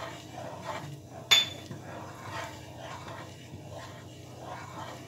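Wooden spatula stirring and scraping a thick milk mixture in a non-stick kadhai, soft irregular scrapes with one sharp clink about a second in, as the spatula knocks the pan.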